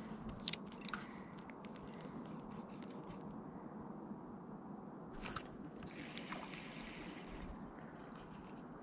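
Faint steady outdoor rush of river water and breeze, broken by a few sharp clicks from a spinning rod and reel being handled, the loudest about half a second in.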